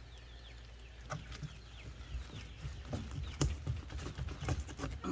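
Knife cutting through a snapping turtle's foot joint: scattered soft knocks and scrapes over a low steady rumble, with one sharp click about three and a half seconds in.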